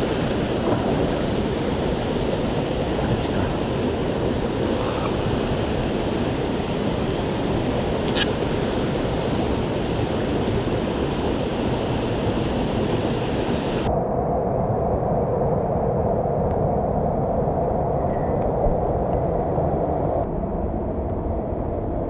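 Mountain stream water rushing steadily. About 14 seconds in, the sound changes abruptly: the hiss drops away, leaving a duller rushing.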